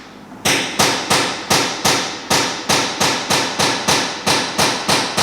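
A hammer striking repeatedly at a steady pace, about three blows a second, each with a short ring.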